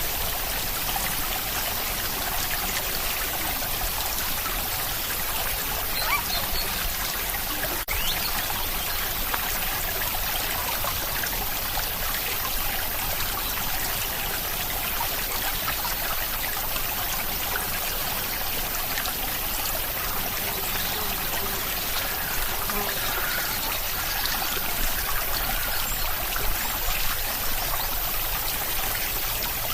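Steady rain falling, a continuous even hiss of drops with water trickling, briefly dipping once about eight seconds in.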